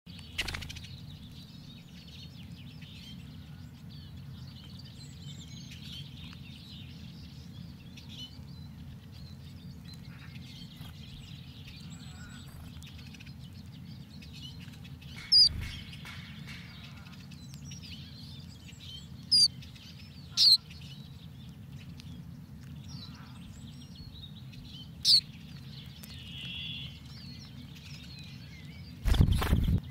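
Small songbirds giving short, sharp calls, with four loud ones in the second half and fainter chirps between, over a steady low background rumble. A brief low rumbling thump comes near the end.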